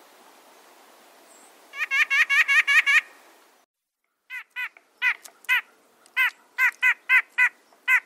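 White-breasted nuthatch calling: a quick run of about eight notes a little under two seconds in, then, after a brief gap, about ten separate call notes at uneven spacing.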